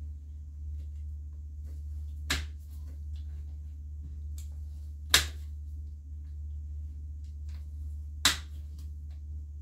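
Hand shears snipping through tough antler reishi (Ganoderma multipileum) stalks: three sharp snips about three seconds apart, with fainter clicks between, over a steady low hum.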